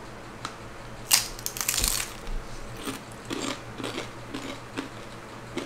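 Crisp air-fried chicken taquito shells being bitten and chewed: a loud crunching bite about a second in, followed by smaller crackly chewing crunches.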